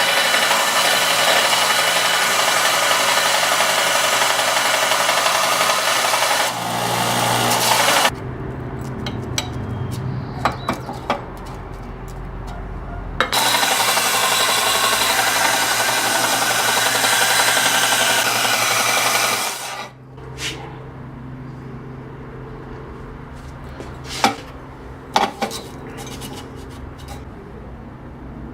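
The cut end of a pipe being squared up and cleaned on an abrasive power tool: two long stretches of steady, rough grinding, with a quieter spell between them, then a few light clicks and knocks near the end.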